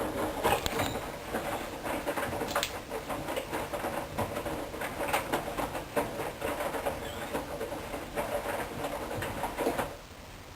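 Hoover Dynamic washing machine drum tumbling the load, an irregular patter of knocks and splashes that stops abruptly near the end.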